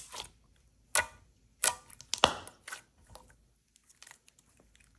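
Thick, glossy slime being slowly stretched and handled, giving a few sharp sticky pops and clicks, mostly in the first three seconds, then only faint ticks.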